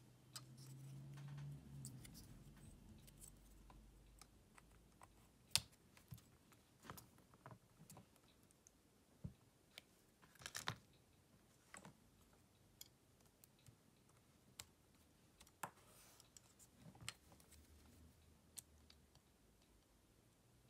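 Scattered small clicks and taps of hand tools on smartphone parts during disassembly of a Xiaomi Redmi Note 10S, irregularly spaced, with the sharpest click about five seconds in and a quick run of clicks near the middle. A faint low hum sounds over the first two seconds.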